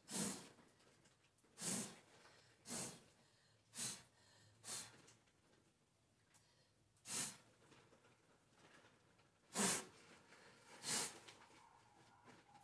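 A person blowing hard by mouth in short puffs of air, about eight of them at irregular intervals, to blow dust off shelved items.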